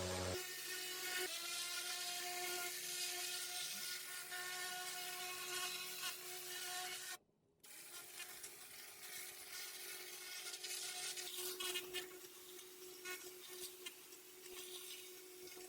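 Pressure washer blasting grime off stone paving: a steady machine whine over a spray hiss. It cuts out briefly about seven seconds in.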